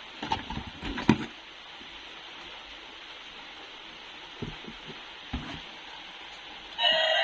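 Plastic toys being handled: a few light knocks and clicks over a steady hiss, then a short steady beep-like tone, about half a second long, near the end.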